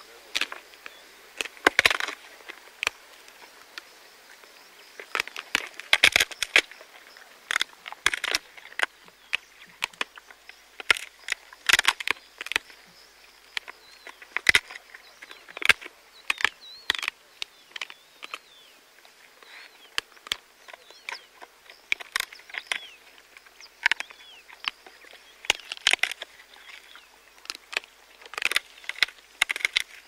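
Spotted hyaena crunching buffalo bones at close range: irregular sharp cracks and crunches from its jaws, some single and some in quick clusters. A faint steady insect drone runs behind.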